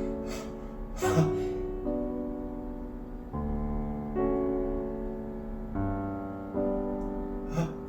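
Background piano music, slow chords changing every second or two, with two short noises, one about a second in and one near the end.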